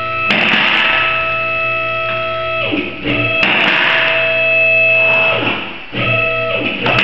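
Background music: a ringing chord struck near the start and another about three and a half seconds in, each ending in a falling slide.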